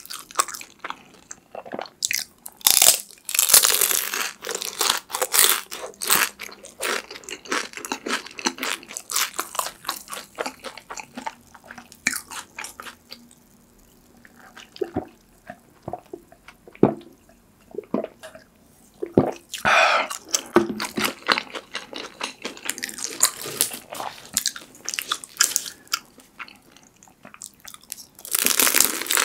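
Close-miked crunching and chewing of fried sweet potato cheese sticks with a crisp golden wrapper. About halfway through, the crunching stops for several swallowing gulps from a glass of dark drink, then crisp bites start again.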